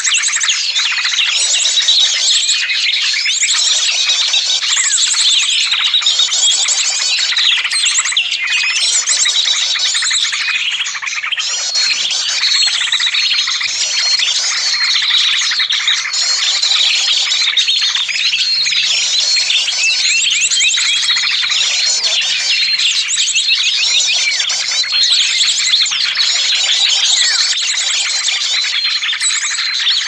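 Many small birds calling at once: a dense, unbroken chatter of overlapping chirps, rapid trills and squeaky calls. It is a lure recording (suara pikat) for drawing small birds in.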